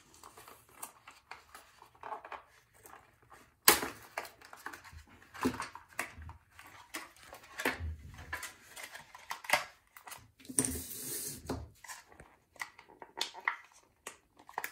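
Blister pack and card backing torn open by hand: irregular crinkling and crackling of plastic and cardboard, with sharp clicks and a denser crinkle about ten seconds in. Small metal and plastic parts (a mandrel, adapter nuts and a drill bit) click and clatter as they are handled and set down.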